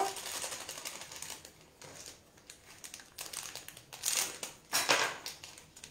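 Crinkling and rustling of a small instant-yeast packet being handled and opened: a run of small crackles, with two louder rustles about four and five seconds in.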